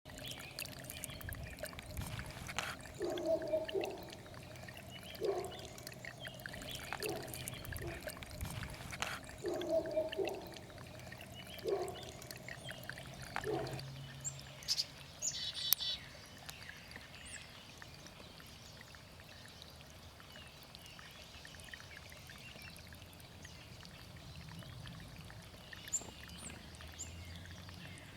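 Spring water bubbling and trickling, with a run of short low gurgles, about one every second or two, in the first half that then die away to a quieter steady trickle. A short high chirp sounds about halfway through.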